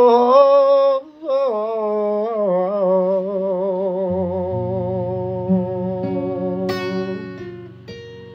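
Man singing a long held note with vibrato over acoustic guitar, the voice slowly fading as low guitar notes ring under it. A guitar strum about seven seconds in and a softer one near the end ring out.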